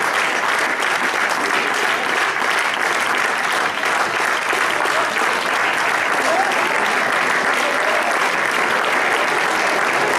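Audience applauding steadily: dense, continuous clapping at a constant level.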